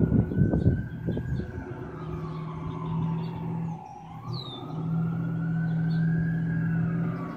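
A siren wailing slowly, its pitch rising and falling twice, over a steady low hum. Loud, uneven vehicle rumble in the first second or so.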